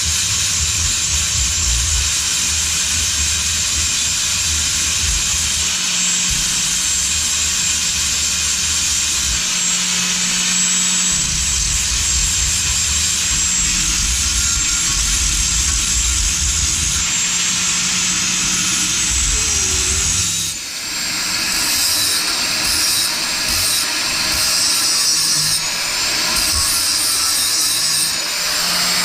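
Angle grinder grinding sheared bolt stubs flush on an engine's top cover: a loud, steady high-pitched grinding whine. About 20 seconds in it dips briefly, then carries on with its pitch wavering.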